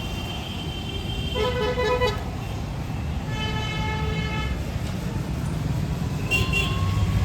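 Street traffic with a steady low rumble, and vehicle horns honking twice, briefly, for about half a second to a second each.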